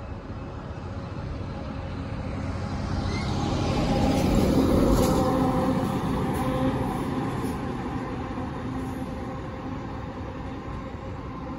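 A vehicle passing close by, swelling to its loudest about four to five seconds in and then fading back to a steady background rumble.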